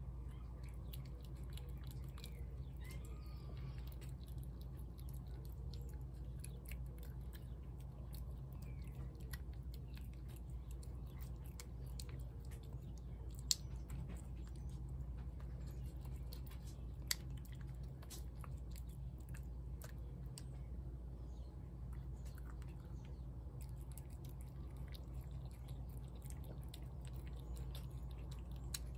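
A domestic cat chewing wet cat food from a plate, a steady run of small wet smacking clicks with a couple of sharper clicks about halfway through, over a steady low background hum.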